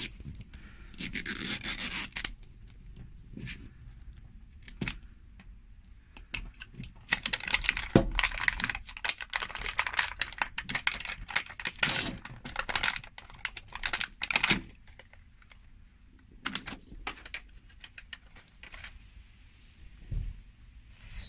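Plastic wrap and foil of an LOL Surprise ball crinkling and tearing as it is peeled open by hand. It comes in irregular bursts, the longest lasting several seconds in the middle, with a few sharp clicks and taps.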